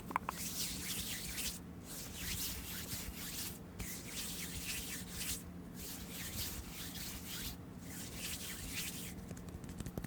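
Hands rubbing together close to the microphone in about five slow bouts with brief pauses between them, making a soft, hissing friction sound.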